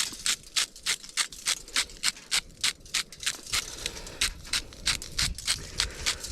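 Smoked sea salt being dispensed onto food in quick, regular strokes, about three a second, each a short crisp grating rattle.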